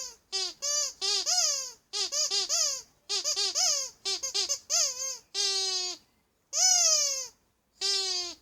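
Rubber squeaky duck toy squeezed over and over: quick clusters of short squeaks, then, from about five seconds in, three longer squeaks that fall in pitch.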